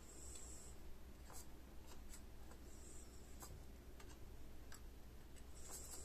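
Faint small clicks and light scratchy taps of hand soldering, the iron tip and solder wire touching header pins on a circuit board, with three brief soft hisses.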